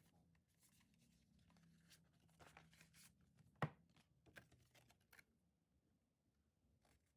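Faint rustling and light handling of packaging and manga volumes, with one sharper tap about three and a half seconds in.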